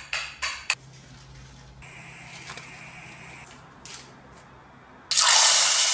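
A few soft clicks from hands mixing in a glass bowl, then, about five seconds in, a loud even sizzle of food deep-frying in hot oil that lasts over a second.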